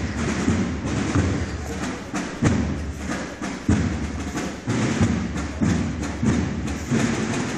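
Slow drumbeats of a Holy Week procession, a heavy thump about every second, spaced a little unevenly, over a steady low rumble.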